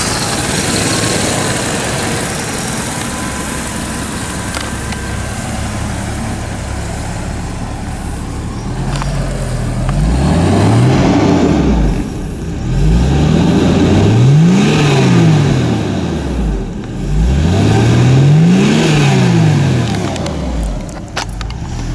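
1991 Jaguar XJS's 5.3-litre V12 engine idling steadily, then revved three times, each rev climbing and falling back to idle over two to three seconds.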